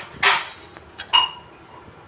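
Metal spatula scraping and knocking against a metal pan while stirring pasta in a thick white sauce: a short scrape just after the start, then a sharper clink that rings briefly a little after a second in.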